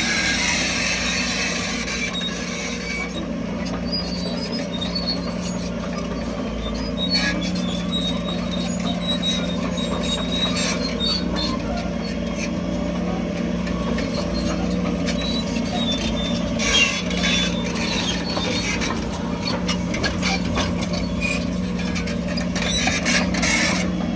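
Heavy diesel earthmoving machinery running steadily under load, with scattered short metallic squeaks and clicks over the engine drone.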